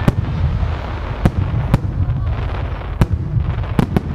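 Japanese aerial firework shells bursting overhead: about six sharp bangs at uneven intervals, two of them close together near the end, over a steady low rumble.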